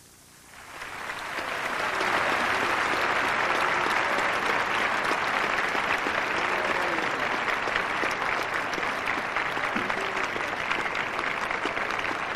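Large audience applauding. The applause swells over the first couple of seconds and then holds steady, with a few voices calling out.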